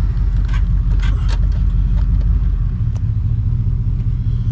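Car running on the road, heard from inside the cabin: a steady low rumble of engine and road noise with a few light rattles in the first second or so. About two-thirds of the way through, the engine settles into a steady low hum.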